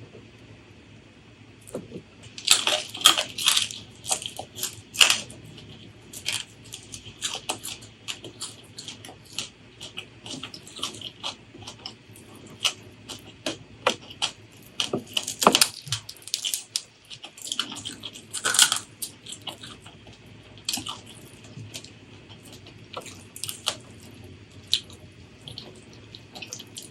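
Close-miked eating sounds: a person chewing food, giving an irregular run of sharp crunches and mouth clicks, with the loudest crunches a few seconds in and twice past the middle.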